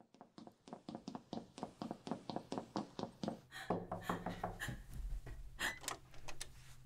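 A fast, even run of light knocks, about seven a second, then a heavier thud about three and a half seconds in followed by a few scattered knocks over a low steady hum.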